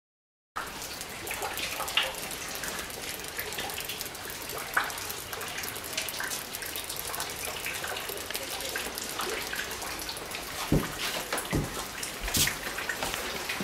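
Water dripping and trickling steadily, with many small drips. Near the end there are three low thumps.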